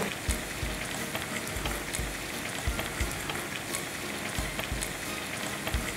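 Sliced pork belly frying in hot rendered fat in a pan with chili, giving a steady sizzling hiss. A few soft low thumps come through it at intervals.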